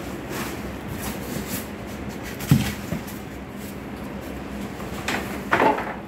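A cardboard courier box and its packing being handled: a dull thump about halfway, then two short scraping rustles near the end, over a steady low hum.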